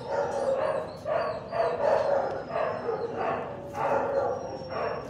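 A dog barking and yipping in excitement, in quick repeated calls about two a second.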